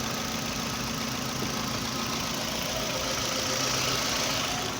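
2009 Toyota Camry engine idling steadily, a car with misfires on cylinders 2 and 3 and a rough idle that the mechanic puts down to a faulty fuel pump and filter assembly.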